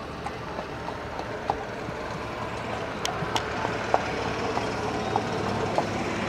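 Steady outdoor background rumble and hiss, growing slightly louder, dotted with scattered short clicks and knocks.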